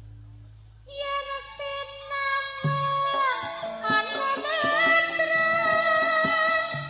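Live Javanese gamelan-style music in pelog tuning. A singer holds a sung note, then about three seconds in the ensemble comes in with drum and struck notes beneath the gliding vocal line.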